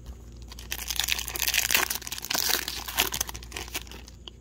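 Plastic wrapper of a hockey card pack being torn open and crinkled by hand: a dense, crackling rustle lasting about three seconds, starting under a second in.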